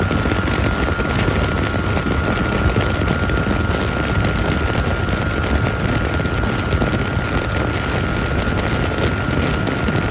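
Gheenoe's outboard motor running at a steady cruising speed, with a constant rush of wind and water and a thin steady whine.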